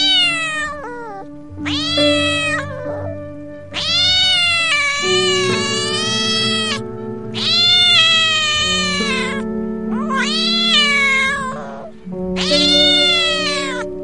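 Domestic cat meowing over and over, about six drawn-out meows that rise and fall in pitch, over background music with long held notes.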